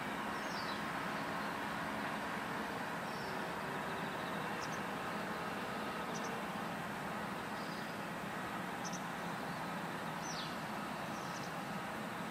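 Steady airport background noise, the distant running of aircraft engines, with short faint high bird chirps every second or two.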